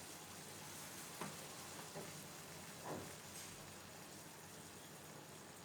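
Faint hiss with a few soft pops about a second apart, as thick chicken curry bubbles weakly in its pan just after the gas is turned off.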